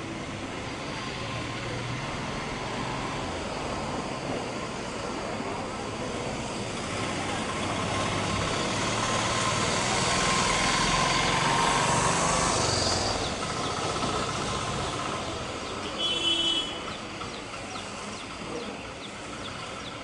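Broad rumble and hiss of a passing vehicle that swells to its loudest about halfway through and then fades. A brief high squeak comes near the end.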